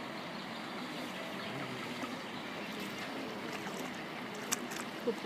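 Steady outdoor background noise, with a sharp click about four and a half seconds in and a short chirp just before the end.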